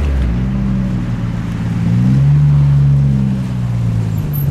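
Alfa Romeo GT 1600 Junior's twin-cam four-cylinder engine running at low revs; its pitch rises a little about two seconds in, holds, then eases near the end.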